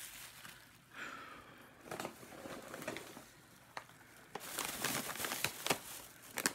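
Plastic bag crinkling and rustling as it is handled: a few scattered rustles at first, then louder and almost continuous over the last two seconds.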